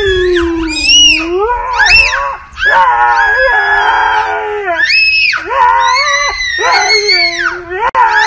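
A husky howling together with a toddler screaming along. Long wavering calls overlap, with short breaks between them.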